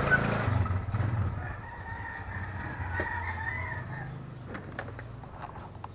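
Yamaha Mio i 125 scooter's single-cylinder engine idling, fading away after about four seconds, while a rooster crows at length. A few light clicks near the end.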